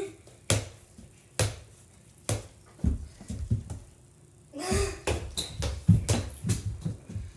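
A mini basketball dribbled on a hardwood floor, with single thuds about once a second. About two-thirds of the way through comes a quicker flurry of bounces, footsteps and scuffling as two players fight for the ball.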